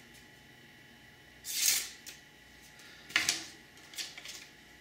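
A knife edge freshly stropped on 16-micron CBN on leather slicing through thin strips of paper as a sharpness test. There is a hissing cut about one and a half seconds in, then a sharper click and hiss around three seconds in, followed by two lighter ticks.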